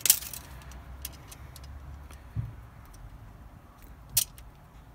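Handling noises from fetching a steel tape measure and setting it against a copper pipe bender: a sharp click at the start, a few faint ticks, a dull knock about halfway, and another sharp click near the end.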